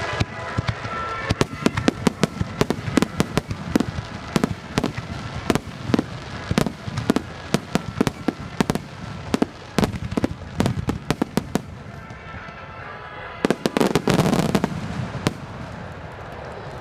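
Starmine fireworks barrage: shells bursting in rapid volleys of sharp bangs, several a second. The bangs thin out about twelve seconds in, then a final cluster of bangs with a deeper rumbling boom comes before it dies away.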